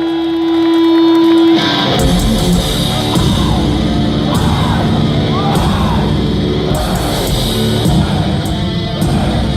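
Thrash metal band playing live. A single held note sounds, and then about one and a half seconds in the full band comes in with distorted electric guitars and drums.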